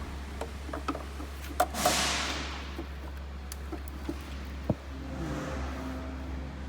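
Plastic clicks and rattles as a car's tail-light bulb holder is unclipped and handled, with two sharp clicks followed by a fading hiss about two seconds in. A steady low hum runs underneath.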